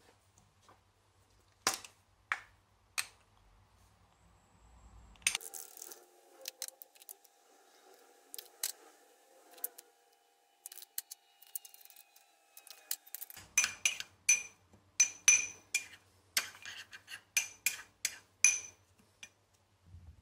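Metal teaspoon clinking and tapping against a small glazed ceramic bowl as ground spices are spooned in and mixed, with a few scattered clicks and taps. The clinks come quick and ringing in the last several seconds.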